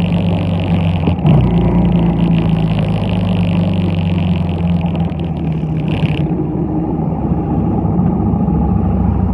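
Yamaha Bolt's air-cooled V-twin running loud and steady through a ForceWinder full exhaust system while the motorcycle is ridden, heard through a phone mounted on the bike. A higher hiss over the engine drops away about six seconds in.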